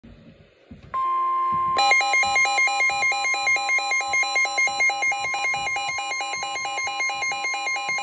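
Midland NOAA weather alert radio going into a warning alert: about a second in, a steady high tone starts, the weather-radio warning alarm tone, and shortly after, the radio's own two-tone alarm warbles rapidly over it. It is the alert for a tornado warning.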